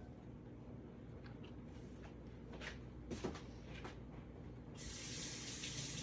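A few light knocks and clatters, then a water tap turned on about five seconds in, running into a sink with a steady hiss.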